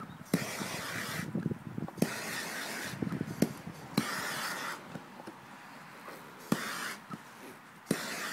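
Handheld propane torch hissing in several bursts of about a second each as the flame is played over a plucked chicken to singe off the last small hairs and pinfeathers. Clicks and knocks from handling the carcass on a plywood board come between the bursts.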